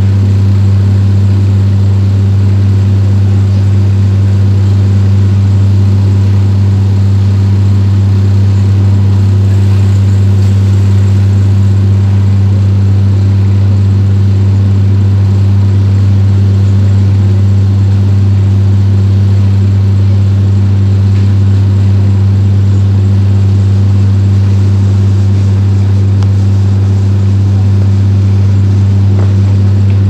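Backhoe excavator's diesel engine running with a loud, steady low hum that does not change, heard from inside the operator's cab.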